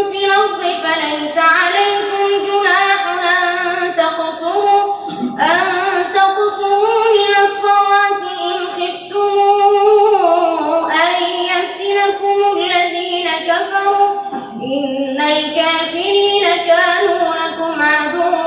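A boy reciting the Quran in the melodic tajwid style: one high, clear voice holding long, ornamented notes, with brief pauses for breath about five seconds in and again near fourteen seconds.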